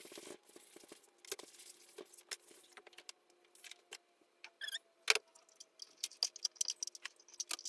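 Scattered light clicks, taps and rustles of things being handled on a work table, with a sharper click about five seconds in.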